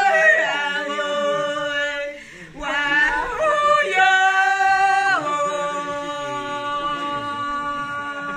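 Women singing a warawi (harawi), a traditional unaccompanied Quechua song, in long-held high notes that drop in pitch at the end of each phrase. There is a short breath pause about two seconds in, and a lower note is held steadily through the second half.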